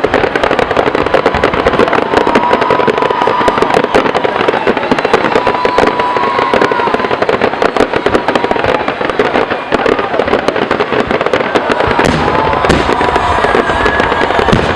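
A fireworks display: a dense, continuous barrage of rapid bangs and crackles, with short whistling tones rising and wavering above it now and then.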